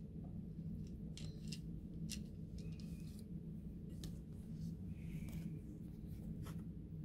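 Faint light clicks and rustles of small handling over a steady low hum: hands setting down and adjusting a thin wooden strip carrying a model chain link fence on a cloth-covered table.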